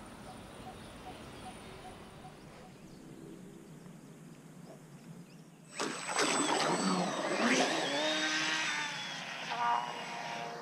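The small brushless electric motor of an RC longtail boat starts suddenly about halfway through. It whines, rising and falling in pitch, over the rush of water past the hull, heard from on board.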